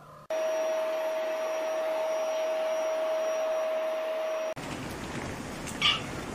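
A household appliance runs steadily for about four seconds, a whooshing noise with a constant whine, and cuts off abruptly. Then a cat gives one short meow near the end.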